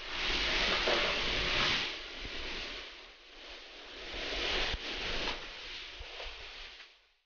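Torrential rain and gusting wind of a severe thunderstorm: a steady hiss with a low rumble, loudest for the first two seconds, easing, then swelling again about four to five seconds in.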